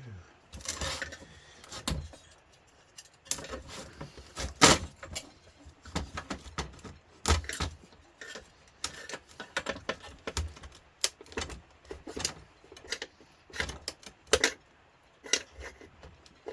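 Metal hand tools and parts clinking and knocking in an irregular clatter, as tools are handled and sorted through. The loudest knock comes about four and a half seconds in.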